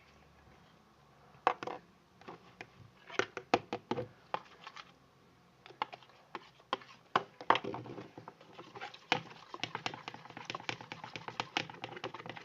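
Spoon stirring clear glue in a bowl, clicking and scraping against the bowl's sides. The taps are scattered at first, then turn rapid and nearly continuous about nine seconds in.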